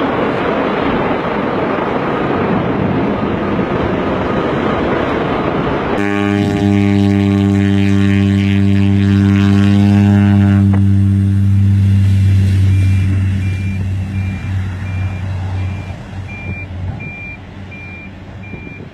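A jet airliner's engines rumble steadily in a steep climb. About 6 seconds in this gives way to an agricultural propeller plane's engine at takeoff power: a loud, steady, pitched drone as it rolls close past along a grass airstrip, fading in the last few seconds. From about halfway on, a high beep repeats at a steady rate.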